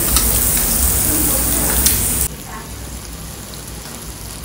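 A loud steady hiss that cuts off abruptly a little over two seconds in, followed by quieter sizzling with light crackles from thin slices of meat cooking on a cast-iron grill pan.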